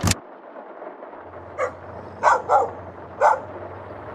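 A dog barking: four short barks, the middle two close together.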